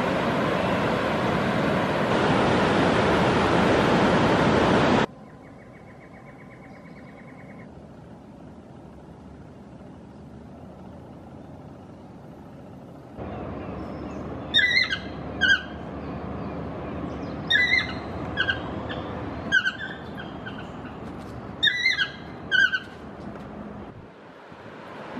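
Loud rushing surf that cuts off suddenly about five seconds in. After a quieter stretch, a bird gives loud short calls over a steady hiss, repeating in pairs about every two to three seconds.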